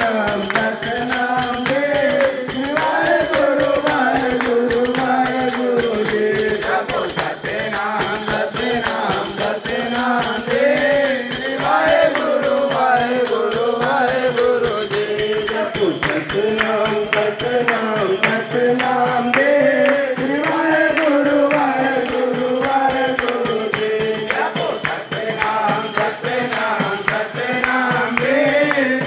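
A group of men chanting a Ramdhun, the devotional repetition of Ram's name, in unison to a short repeating melody. Hand clapping, a hand-held frame drum and jingling percussion keep a steady, quick beat throughout.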